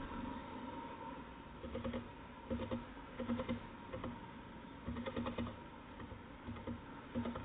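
Birds pecking and tapping at nuts in a nut feeder: irregular bursts of quick taps, a group every half second to a second.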